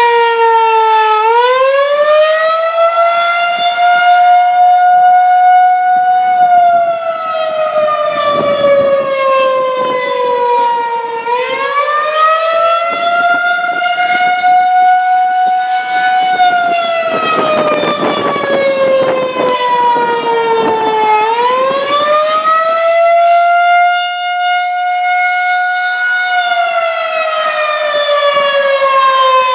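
Federal Signal 2001-130 outdoor warning siren sounding the Attack signal, a wavering wail. About every ten seconds its pitch rises quickly, holds briefly, then slowly falls.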